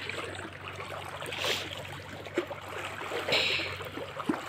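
River water lapping at the edge of concrete steps, with two brief splashes, about a second and a half in and again past three seconds, as feet wade in the shallows.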